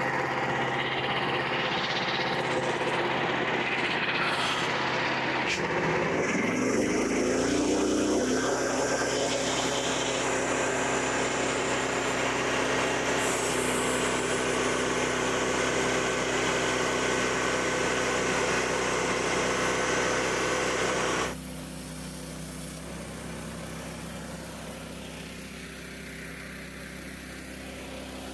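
Portable bandsaw sawmill with its small engine running steadily and the blade sounding over it. The pitch shifts about 7 seconds in, and about 21 seconds in the sound suddenly turns much quieter and duller, leaving a steady engine hum.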